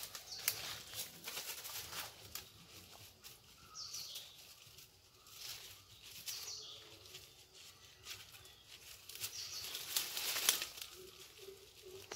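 Dry leaves rustling and crackling in short irregular bursts as a puppy noses and paws through leaf litter. The longest, loudest spell of rustling comes near the end.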